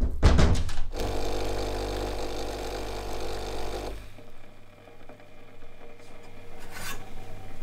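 Pod coffee machine's pump buzzing steadily for about three seconds while coffee pours into a porcelain cup, then cutting off. A few sharp knocks come just before it starts, and a single light clink near the end.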